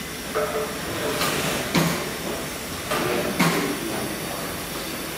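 Stationary engines running in an engine hall: a steady hiss with a few irregular sharp knocks or puffs, several coming in close pairs.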